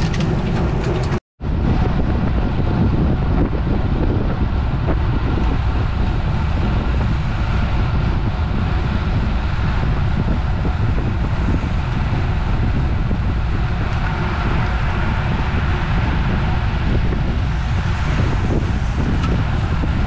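Steady wind noise buffeting the microphone of a cyclist's camera while riding, with low road rumble. The sound cuts out completely for a split second about a second in.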